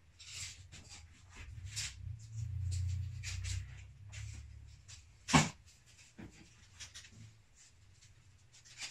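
Rustling and handling noises as cables are moved about and measured with a tape measure, with one sharp knock about five seconds in.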